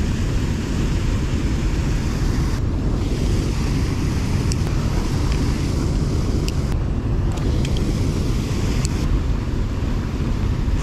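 Steady rushing of a small creek and its waterfall, mixed with wind buffeting the microphone. A few faint clicks sound about halfway through and near the end.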